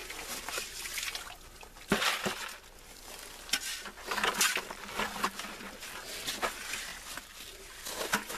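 Shovel digging and scraping into gravelly soil, with dirt and stones tipped into plastic buckets: irregular scrapes and knocks, the sharpest about two seconds in.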